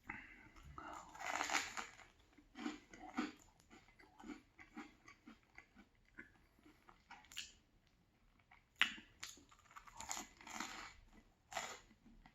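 Close-miked biting and chewing of a banh mi, the crusty baguette crunching in irregular bursts, some much louder than others.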